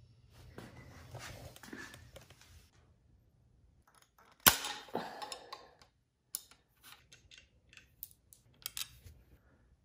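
Hand tools and small metal parts being handled during work on a motorcycle's front end. A rustle comes first, then one sharp clack about halfway through, the loudest sound, ringing briefly, followed by a string of lighter clicks and taps.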